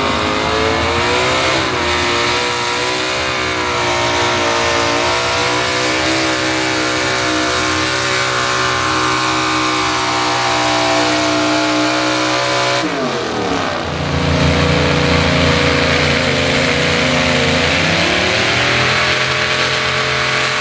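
Pulling truck's engine running hard under load as it drags a weight-transfer sled, held at high, fairly steady revs. About 13 seconds in it gives way abruptly to another puller's engine, lower in pitch, which revs up near the end.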